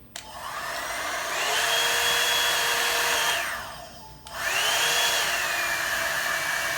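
Hot-air hair dryer brush switched on, its fan motor rising in pitch as it spins up, blowing steadily, then winding down and off about three seconds in. It is switched on again a second later and drops to a lower pitch partway through as the speed setting is changed. The settings are off, low, middle and high, and low and high sound alike.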